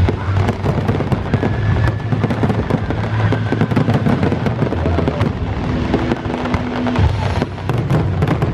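Fireworks display: a quick run of bangs and crackling bursts over a low rumble, with music playing along.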